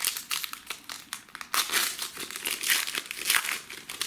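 Foil trading-card pack wrapper crinkling and rustling as it is handled and opened by hand, in irregular bursts.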